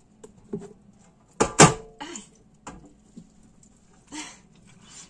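Two sharp knocks in quick succession from a plastic cheese mold being handled as a cheesecloth-wrapped brynza is turned over in it, with a few lighter clicks and a short rustle of the cloth near the end.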